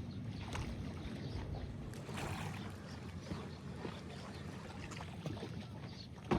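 Water lapping with wind noise, scattered faint ticks and one sharp knock or click near the end.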